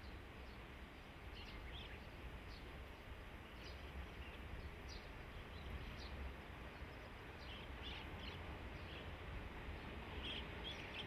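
Quiet outdoor ambience: a steady low rumble with scattered short bird chirps throughout.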